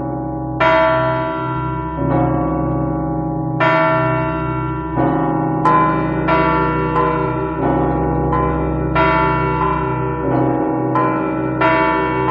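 Church bells ringing: a run of strikes on several bells of different pitches, roughly one a second, each ringing on into the next over a deep sustained tone.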